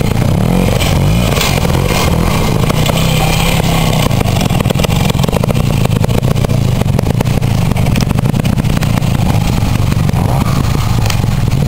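Classic trials motorcycle engine running and revving up and down as the rider picks the bike up a steep dirt section.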